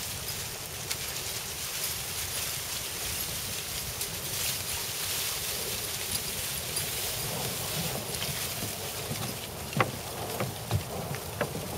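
Dry fallen leaves crunching and rustling under the paws of a pack of dogs and the feet of people walking, a steady crackling hiss, with a few sharp snaps or knocks in the last two seconds.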